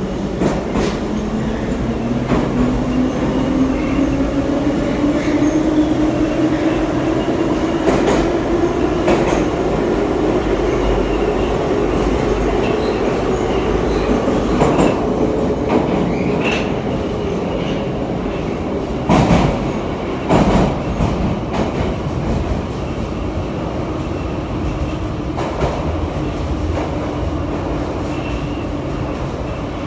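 Em-series (81-501/502/503) metro car running through a tunnel, heard from inside the car. The motor whine rises in pitch as the train gathers speed, then eases down as it slows into a station. Steady rumble throughout, with scattered wheel knocks and two louder thumps about two-thirds of the way through.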